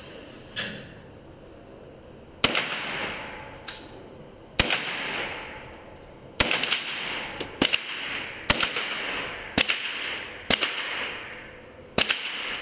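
Just Right Carbine in 9mm firing a string of single shots. Each loud report is followed by a long echoing tail off the range walls. The shots start about two seconds apart and then come quicker, about one a second, until the magazine runs empty.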